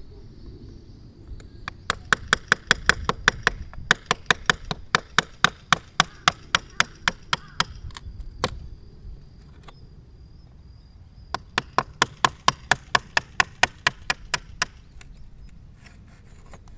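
Rapid hand hammering, about five sharp blows a second, in two runs with a pause of a few seconds between them.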